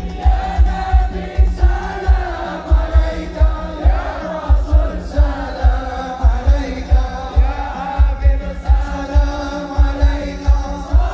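Sholawat sung by many voices together to a heavy, rapid, regular drum beat.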